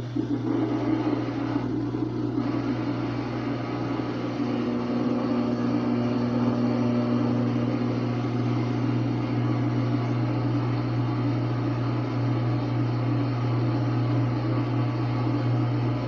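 Samsung WA45T3200AW top-load washer's drain pump running at the start of a calibration cycle with the tub still, a steady grinding hum that firms up slightly about four seconds in. Other owners report this grindy noise as the machine's normal drain-pump sound.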